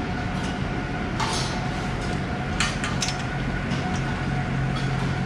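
Steel headlock stanchions clanking a few times as Holstein dairy cows eat at the feed bunk, over a steady mechanical hum.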